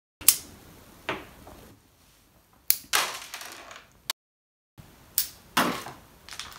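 A small LEGO Technic gun snapping as it fires three times. Each shot is followed a moment later by a knock as the projectile hits, with a few small clattering pieces after it.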